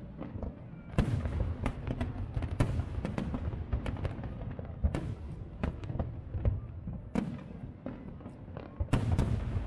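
Aerial fireworks shells bursting: an irregular string of sharp bangs and crackles over a low rumble, with the loudest bangs about a second in and near the end.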